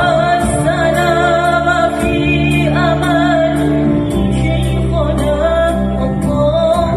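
A boy singing a qasidah, an Islamic devotional song, in a wavering, ornamented melody into a microphone, over a backing of sustained chords and a steady beat.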